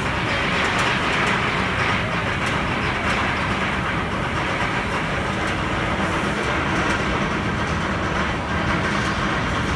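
Steel roller coaster train of Nitro, a Bolliger & Mabillard hyper coaster, running along its track: a steady rolling rumble with faint scattered clicks, holding an even level throughout.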